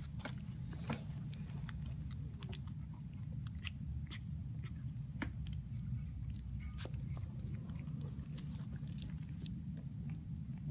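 Young Havanese puppies mouthing and chewing on each other: irregular wet smacking clicks, several a second, over a steady low rumble.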